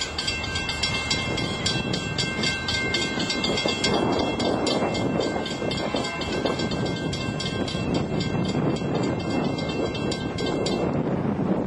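A train rolling past with its wheels squealing in several high, steady tones over a rumble and quick rhythmic clicking; the squeal stops about eleven seconds in.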